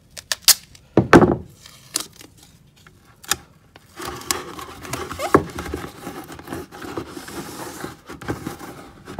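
Handling noise inside a plastic bucket: a few sharp taps and a loud knock about a second in, then steady rubbing and crinkling from about four seconds as duct tape and rope are pressed against the bucket's inner wall.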